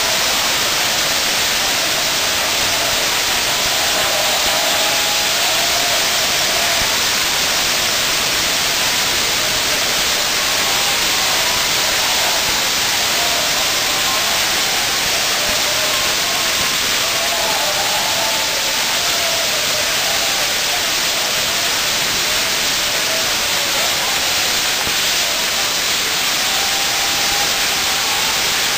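Continuous loud hissing of the spark-spewing fountains driving a Maltese ground-firework wheel as it turns, steady with no bangs.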